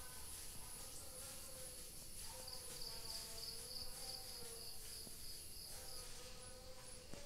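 Faint, high-pitched insect chirring: a steady thin whine with a pulsing trill beneath it.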